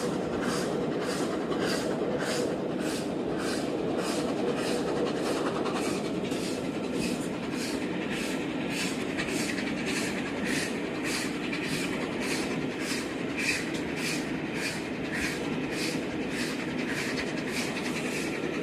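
Train running at speed, heard from inside a coach close behind the steam locomotive Tornado: steady wheel and track noise with a fast, even rhythmic beat that quickens a little about six seconds in.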